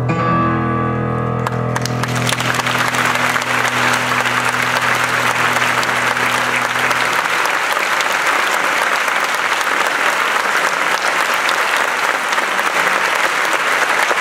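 Audience applauding while the final sustained chord of a grand piano rings and dies away; the chord's low notes fade out about seven seconds in, leaving only the applause.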